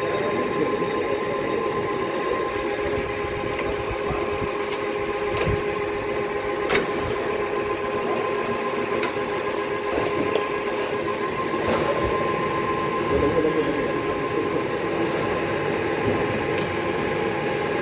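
Kirloskar Turnmaster 350 all-geared lathe running steadily, its gearbox giving a constant whine over a mechanical rumble, with a few faint ticks.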